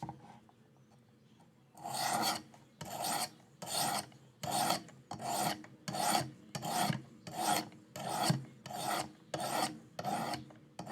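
Sharpening stone rasping across a knife's S35VN steel blade edge on a Work Sharp Precision Adjust guided sharpener. After about two seconds of quiet, it makes regular back-and-forth strokes, about one or two a second. The steel is hard and slow to take an edge.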